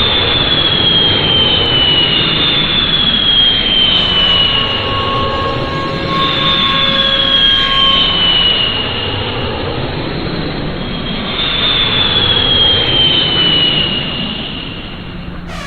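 Jet airliner engine noise: a steady loud rush with a high whine that slides down in pitch, four times over.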